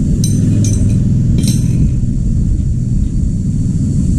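Metal wrenches clinking on the flare nut of an air-conditioner's copper refrigerant pipe, three light ringing clinks in the first second and a half, over a steady low rumble.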